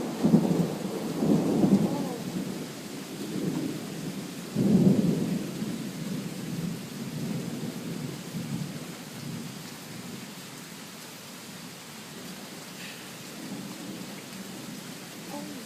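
Thunder rumbling over steady rain, with a fresh peal about four and a half seconds in that rolls away. The rumble fades out, leaving the rain.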